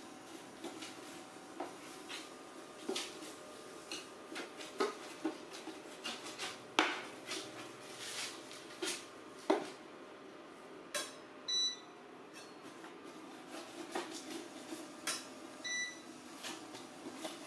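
A metal ladle clinks and scrapes against a stainless-steel pot, in many short irregular knocks and taps over a steady hum.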